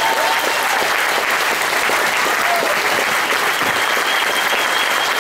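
Large audience of several hundred people applauding steadily, greeting a speaker who has just been introduced.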